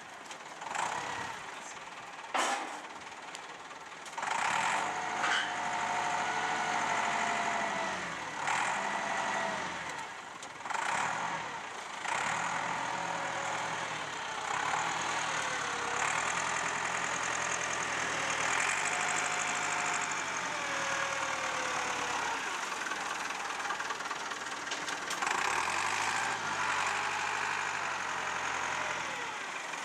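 Heavy diesel vehicle engine running, its revs rising and falling several times, with a falling whine above it and a few sharp knocks.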